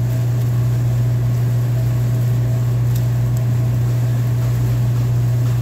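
A loud, steady low hum, with a couple of faint clicks about three seconds in.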